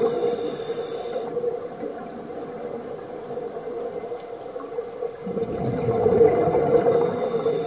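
A scuba diver's exhaled bubbles gurgling from the regulator, heard underwater: one breath out fading in the first second or so, a quieter lull, then another breath out from about five seconds in.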